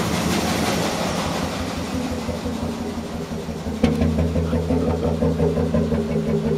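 Hot bulb engine running steadily, its exhaust beating in an even rhythm. About four seconds in, the beat becomes louder and sharper, heard at the exhaust pipe outside the wall.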